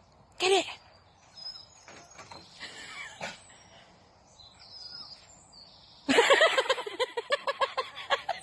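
A dog gives one short bark about half a second in, and birds chirp faintly. From about six seconds a rapid string of short, high yips follows, several a second.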